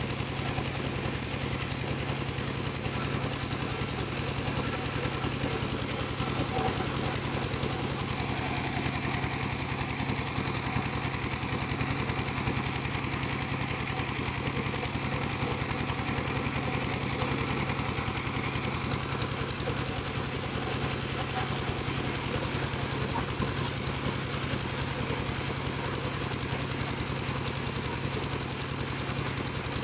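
Piling machine's engine running steadily with a rapid, even pulsing beat.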